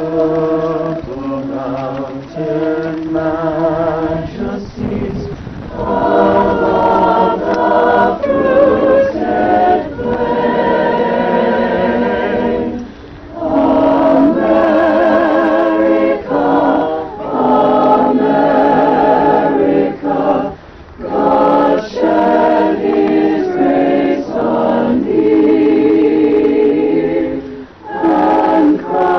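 A choir singing a cappella: several voice parts hold chords with vibrato, in phrases separated by brief pauses.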